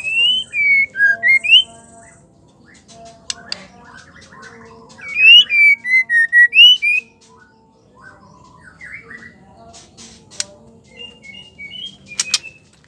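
White-rumped shama singing: two loud phrases of clear whistled notes that slide up and down, about five seconds apart, with softer chirps and a few short sharp calls between them.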